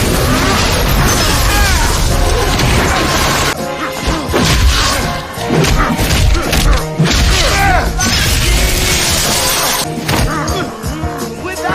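Action-scene soundtrack: loud dramatic music over the hits, crashes and smashing of a fight.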